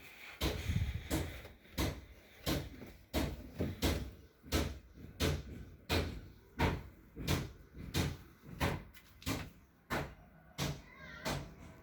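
Steady rhythmic knocking, about three sharp knocks every two seconds, each with a short ring after it.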